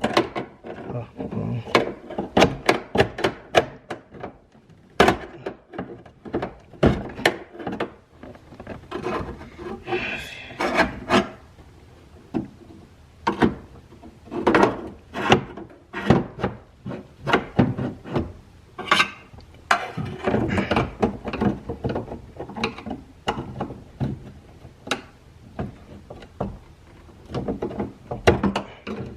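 Stuck plastic window sliders being pried and worked out of the metal window channel of a 1996 Impala SS door: irregular sharp clicks and knocks with short stretches of scraping.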